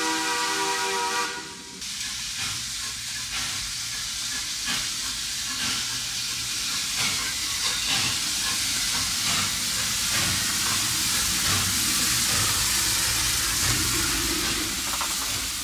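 Steam locomotive's whistle blowing a steady chord of several notes, which stops about a second and a half in. It is followed by a steady hiss of escaping steam with scattered faint knocks.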